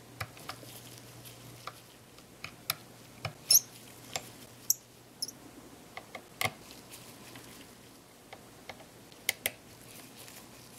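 Light, irregular clicks and taps of a small precision screwdriver backing tiny screws out of a Canon EOS 60D's body, with gloved hands handling the camera. A faint low hum runs underneath.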